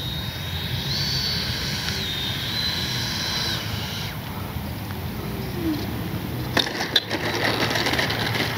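Freewing Mirage 2000 RC jet's 80 mm, 12-blade electric ducted fan whining, its pitch stepping up and down with the throttle, then cut off about three and a half seconds in as the jet comes in to land. From about two-thirds through come knocks and rattles as the metal-strut landing gear touches down and rolls on the asphalt runway, over a low steady rumble.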